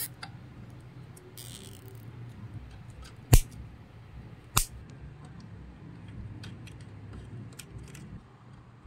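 Nylon cable ties being fastened around bundled wires: a short ratcheting rasp as a tie is pulled tight, then two sharp snips about a second apart as side cutters trim the tie tails. Small plastic clicks from handling the wires, over a faint low hum.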